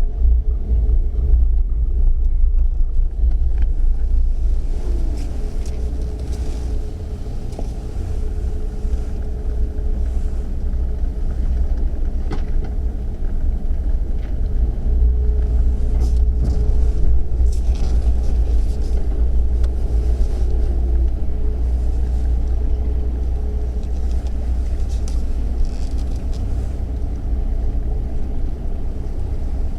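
Loud low rumble of wind buffeting the microphone, with a faint steady machine hum underneath.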